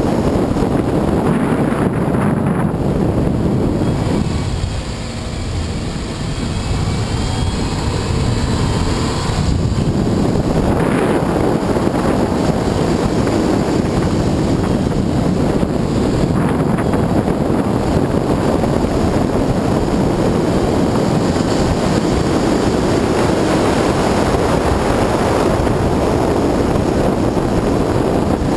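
Subaru Forester 2.5XT driven at speed on a circuit: wind rushing over an outside-mounted camera's microphone, mixed with engine and tyre noise. The noise drops for a few seconds about five seconds in, then builds back up.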